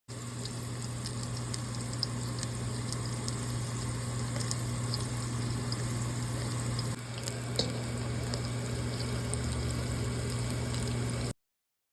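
Food frying in a pan: a steady sizzle with scattered small pops, over a steady low hum. The sound breaks off briefly about seven seconds in.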